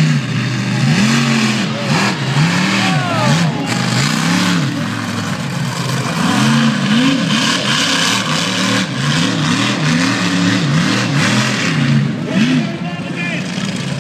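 Monster truck engine revved up and down over and over, about one to two revs a second, over a constant noisy din.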